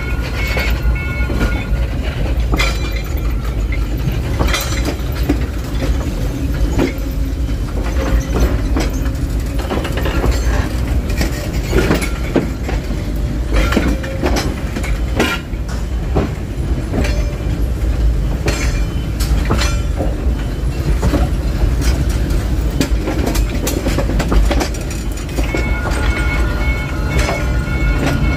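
D13E diesel locomotive hauling passenger coaches, its engine rumbling low and steady under many irregular clacks of steel wheels over rail joints and points.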